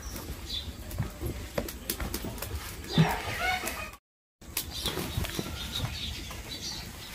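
Background bird calls with chicken-like clucking, over scattered small clicks and knocks. There is a short louder sound about three seconds in, and the sound drops out briefly just after four seconds.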